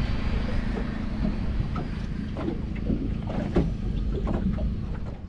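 Wind rumbling on the microphone on an open boat, with small scattered knocks and taps.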